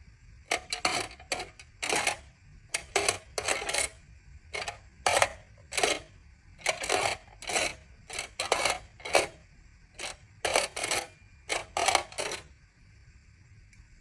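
Aluminium foil being crinkled by hand in many short, quick bursts that stop a little before the end.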